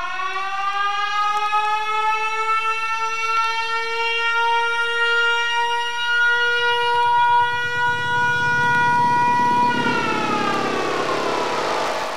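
Fire station alarm siren winding up into a steady wail, holding it, then winding down from about ten seconds in.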